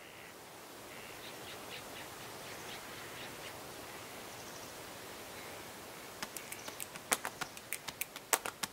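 Faint birdsong, a few short chirps over a steady outdoor hiss that fades in. From about six seconds in, a quick, uneven run of sharp clicks starts and grows denser.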